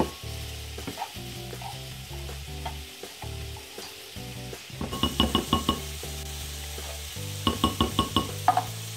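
Spatula scraping condensed cream of chicken soup out of a tin can into a glass bowl. There are two runs of about five quick clinks, one about five seconds in and one near the end.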